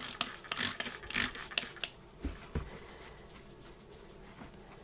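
Quick squirts from a trigger spray bottle of cleaner, about seven in the first two seconds. Then two low knocks as the bottle is set down on the counter, and faint wiping of a paper towel over the sink top to clear old plumber's putty.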